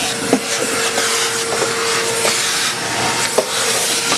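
A jigsaw cutting through a boat's fiberglass cabin liner while a vacuum hose sucks up the dust at the cut. A steady whine runs until about three seconds in, with scattered knocks throughout.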